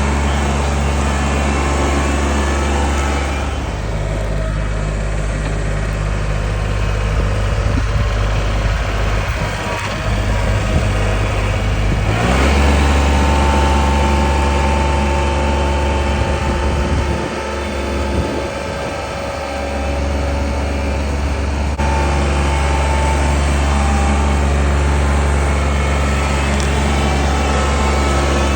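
An engine running steadily at low speed with a deep hum. Its note shifts a few times and dips briefly past the middle.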